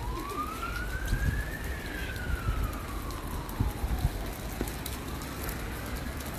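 An emergency siren wailing in slow sweeps: its pitch rises for about two seconds, falls for about two and a half, then rises again near the end. Under it is a steady hiss of rain.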